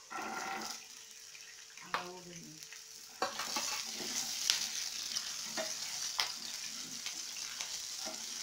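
Green peas dropped into hot oil with tempered spices in a nonstick frying pan. The oil breaks into a loud sizzle about three seconds in, with scattered clicks of a wooden spatula stirring against the pan.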